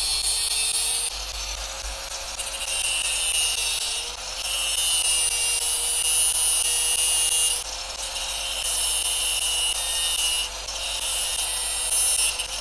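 Handheld angle grinder with a cut-off disc running steadily and cutting into a small metal sewing-machine presser foot: a shrill metal-cutting screech in five passes of one to three seconds each, with short breaks between them, over the motor's steady whine.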